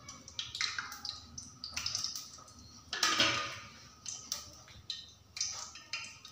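Wet fingers dipping into a small steel bowl of salted water and dabbing it onto rolled naan dough: a run of soft, irregular pats, with a longer rustle of the dough being handled about three seconds in.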